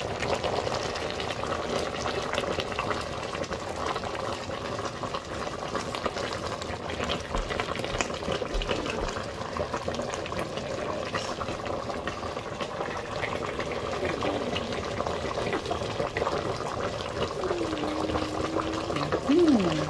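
A large stainless steel pot of vegetable stew boiling on the stove: a steady bubbling with many small pops.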